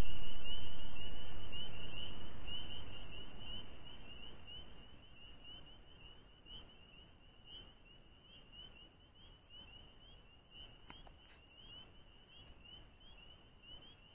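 Spring peepers calling: a chorus of short, high, rising peeps, a couple each second, over a low hiss that fades away over the first few seconds.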